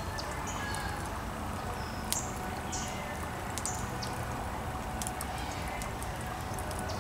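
Charcoal fire burning in a metal fire pit, crackling with scattered sharp pops over a steady background hiss, while short high chirps come and go.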